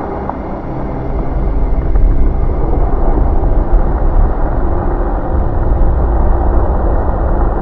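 Wind buffeting the microphone outdoors: a loud, low, uneven rumble that swells about a second in.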